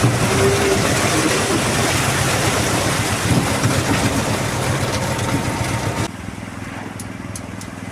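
IHI IPF 110 concrete pump truck running as it pumps concrete: a loud, steady, noisy mechanical rumble. About six seconds in the sound cuts abruptly to a quieter, steady engine hum.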